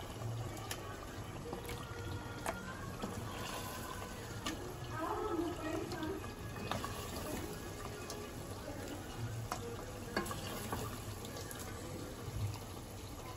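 Steel ladle clinking and scraping against steel pots as thick mutton curry is spooned into a serving karahi: scattered sharp clinks every second or two, with the wet slop of meat and gravy, over a steady background hiss.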